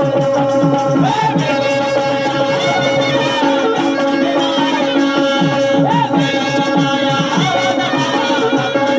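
Live folk music from a tamasha troupe. A hand drum plays repeated bass strokes that slide down in pitch, over steady held notes from an instrument.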